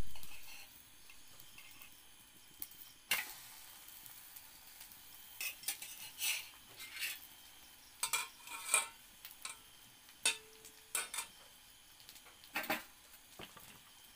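An egg omelette frying in oil in a metal pan over a wood fire: a faint sizzle, broken by scattered short scrapes and clinks of a metal spatula and tongs against the pan. The tail of a loud knock fades out in the first half second.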